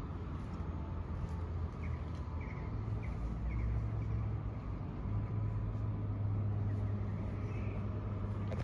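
Low, steady engine rumble of a motor vehicle, swelling somewhat in the second half, with a few faint bird chirps.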